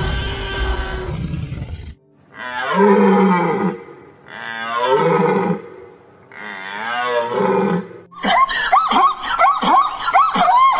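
A dinosaur roar sound effect that cuts off about two seconds in. Then three long, wavering bleating calls of a deer. From about eight seconds on comes a zebra's quick run of high, yelping barks, about three a second.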